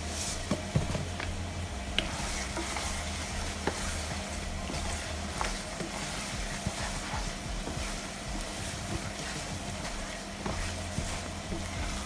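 Thick tomato stew sizzling in an oily pan while a wooden spoon stirs it, the spoon knocking lightly against the pan now and then, over a steady low hum.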